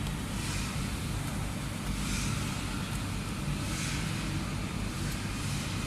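Pencil rubbing back and forth over paper laid on the stamped engine number, a scratchy hiss that swells with each slow stroke, over a steady low hum.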